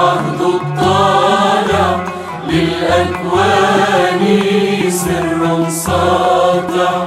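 Music from an Arabic Christian hymn: a melody line with vibrato over held bass notes, dipping briefly about two and a half seconds in.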